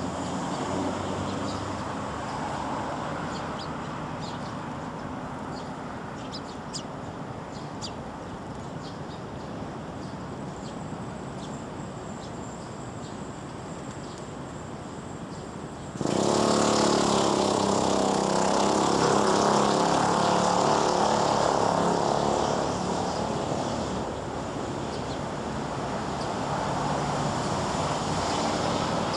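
Steady hum of road traffic with a few faint high chirps from Eurasian tree sparrows. About halfway through, the traffic noise suddenly jumps louder and stays there.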